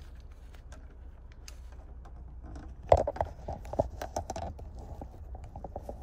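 A quick run of clicks and knocks, as of hard parts being handled, loudest about three seconds in and then thinning out, over a steady low hum.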